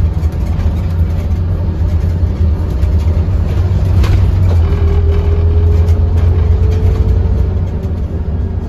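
Scania OmniCity N230UD double-decker bus's diesel engine and drivetrain heard from inside the passenger saloon as the bus drives along: a steady low drone, with a faint whine rising slightly through the second half and a single click about four seconds in.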